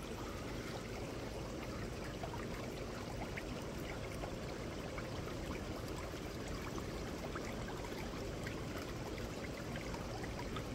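Shallow water trickling steadily in a concrete-sided ditch, with faint scattered ticks.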